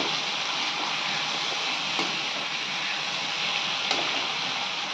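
Diced potatoes and tomatoes sizzling steadily in hot oil in a kadai, with two faint ticks about two and four seconds in.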